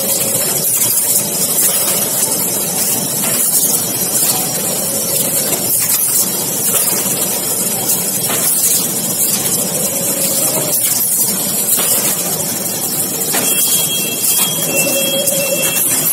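Automatic paperboard box-making machine running: a steady mechanical din with a hiss and occasional faint knocks. A thin high whine joins near the end.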